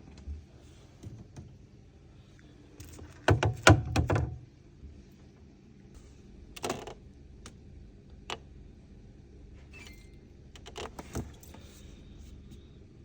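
Clicks and knocks from a refrigerator being handled: a rapid cluster about three seconds in, then a few single clicks, and a faint short high tone near the end.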